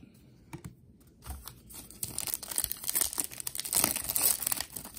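A foil trading-card pack crinkling and tearing open by hand, starting about two seconds in and running on as dense crackling. Before it there are a few light handling clicks.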